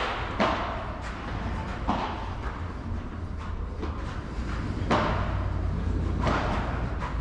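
Padel rally: the ball cracking off solid padel rackets and knocking against the court and the glass walls, about five sharp hits spaced irregularly. A steady low hum runs underneath.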